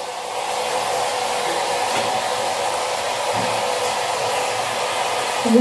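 Steady rushing noise that steps up a little about half a second in and drops away just before the end.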